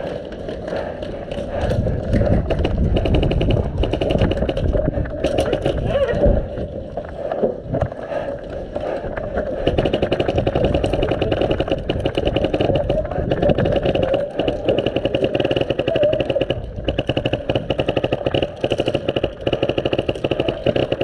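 Airsoft guns firing on full auto: a rapid, steady rattle of shots in long strings, heaviest from about halfway through.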